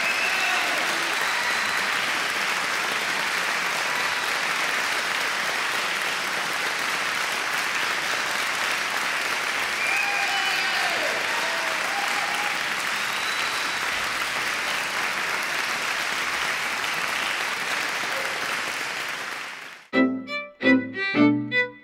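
Audience applauding steadily. Near the end the applause stops and music starts, made of short, separate notes.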